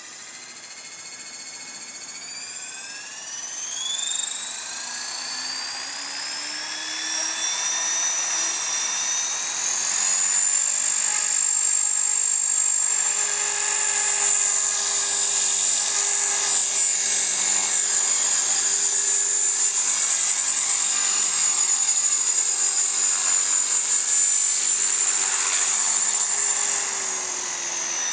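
A 450-size radio-controlled model helicopter spooling up while sitting on the ground. It makes a high whine that climbs steadily in pitch and loudness over the first ten seconds or so, then holds steady, easing down slightly near the end.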